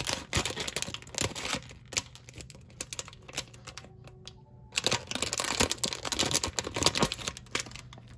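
Metallic foil blind-box bag crinkling as it is snipped open with scissors and handled, then more crinkling and rustling as it is pulled apart and the figure taken out, with a short lull about four seconds in.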